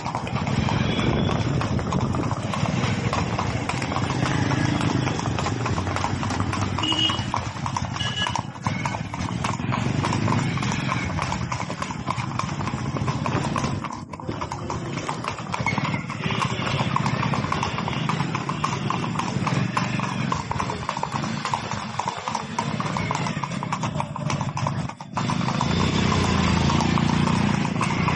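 A ridden horse's hooves clip-clopping in a steady rhythm of rapid strikes, with only brief pauses.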